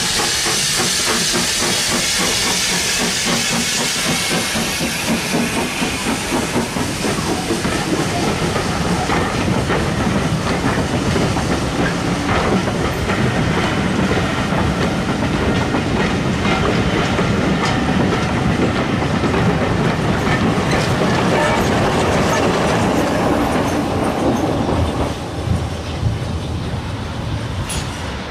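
Steam tank locomotive pulling a passenger train away, hissing steam at first, then the coaches rolling past with their wheels clicking over the rail joints. The sound drops away near the end.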